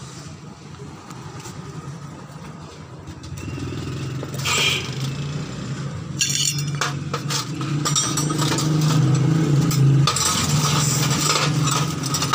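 Small metal screws and parts of a dismantled car gas-kit pressure reducer clinking as they are handled. A vehicle engine runs in the background, growing louder about halfway through.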